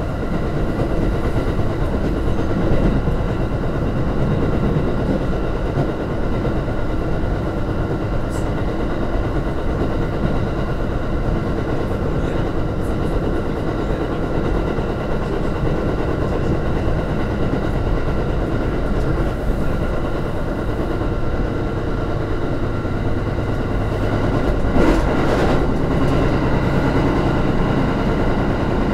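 Electric train running at speed, heard from inside its rear cab: a steady rumble of wheels on rail with a faint steady hum above it, and a brief louder rattle near the end.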